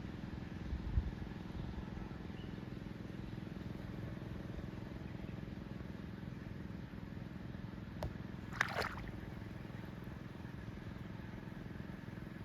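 Engine running steadily at low speed, with a short clatter about eight and a half seconds in.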